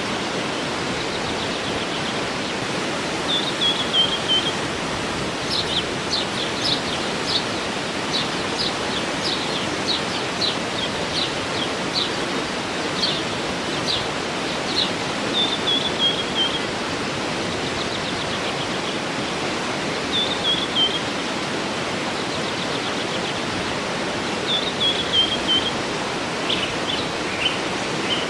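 Steady rush of a waterfall, with a songbird singing over it. The bird repeats a short falling phrase every few seconds and, in between, gives a run of quick high chirps.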